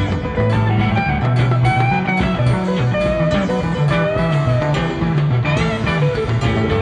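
Background music led by guitar, with a bass line stepping between notes underneath.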